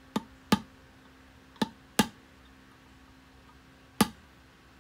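Hammer striking a steel punch to drive a wheel bearing race into a brake drum's hub: five sharp metallic taps, two quick pairs and then a single strike about four seconds in.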